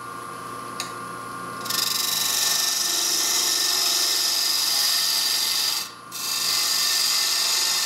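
A point tool cutting into wood spinning on a lathe, turning down a small tenon: a loud steady hiss of shavings over the hum of the lathe motor, starting about a second and a half in, breaking off briefly about six seconds in, then resuming.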